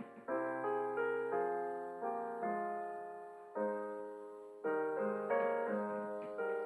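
Slow solo piano music: chords struck one after another, each ringing and fading before the next.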